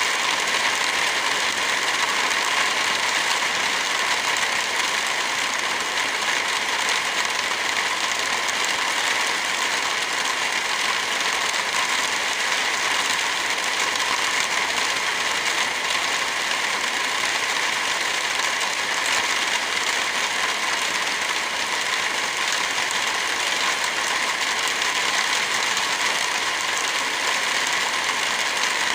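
Heavy rain falling steadily as an even hiss.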